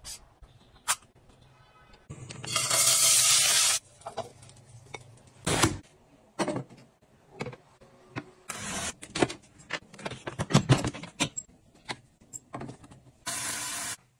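Clicks, taps and knocks of household gadgets being handled, with two bursts of hissing noise, a long one about two seconds in and a shorter one near the end.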